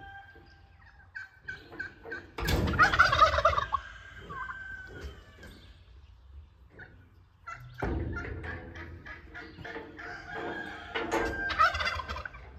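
Farmyard poultry calling: turkey gobbles and clucking hens, loudest about two and a half seconds in and again in the last few seconds.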